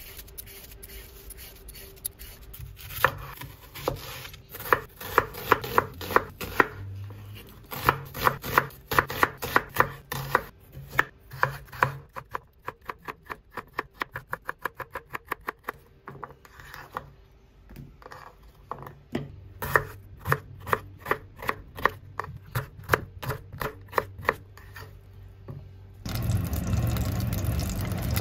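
A metal vegetable peeler scrapes down a carrot in irregular strokes. Then a knife chops carrot on a wooden cutting board in quick, even knocks, about four or five a second. Near the end, raw chicken drops into hot oil in a pot and starts sizzling loudly.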